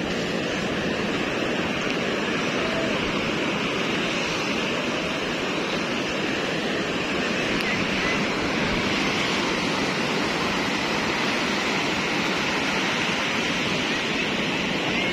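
Ocean surf breaking and washing up a flat sandy beach, a steady rushing noise.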